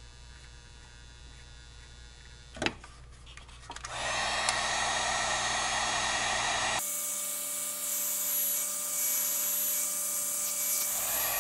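Electric heat gun switched on about four seconds in, its fan blowing steadily as it shrinks heat-shrink tubing over soldered wire joints. The blowing changes in tone about three seconds later and stops near the end. Before it, only a faint hum and a single click.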